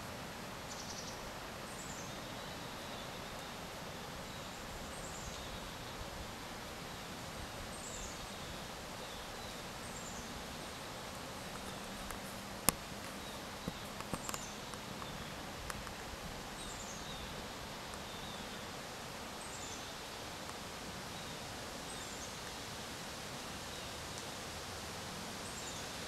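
Woodland ambience: a steady outdoor hiss with a bird's short, high, falling call repeated every two to three seconds. One sharp click about halfway through, and a few smaller clicks soon after.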